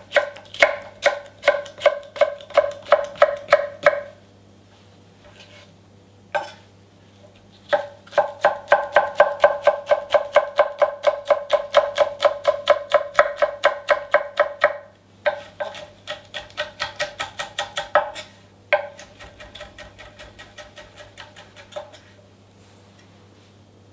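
Chef's knife chopping red bell pepper on an end-grain wooden cutting board: rhythmic knocks of the blade on the wood, about three to four a second. A run of strokes is followed by a pause of a few seconds, then a longer, faster run, with lighter strokes near the end.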